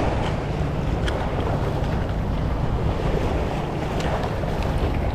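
A steady low rumble of wind on the microphone and sea at the breakwater, with a few faint crinkles and ticks from the plastic lure packaging being handled.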